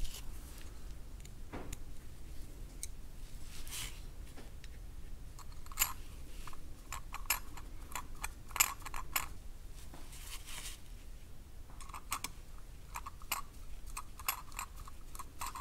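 Small screwdriver turning the tiny throttle-plate screws into the throttle shaft of a Farmall M carburetor throttle body. It makes faint, scattered metal clicks and short scraping ticks, more frequent in the second half.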